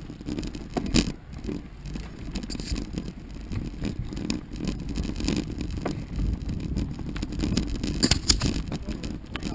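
Mountain bike with knobby tyres rolling down a rooty dirt singletrack: a steady tyre rumble over the ground, with the bike rattling and knocking over bumps, hardest about a second in and again near the end.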